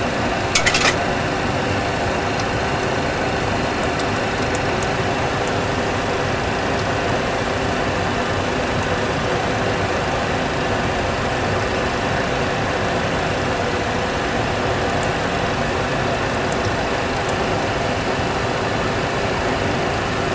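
Steady cockpit background hum of a Boeing 737 Classic flight simulator in flight: the simulated engine and airflow sound. A quick run of sharp clicks about half a second in, from keys pressed on the flight management computer's keypad.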